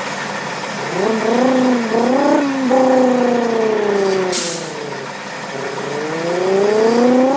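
Vocal imitation of a Subaru engine: three quick revs rising in pitch with drops between them like gear changes, then a long falling drone and a slow rise again, with a short hiss about four seconds in.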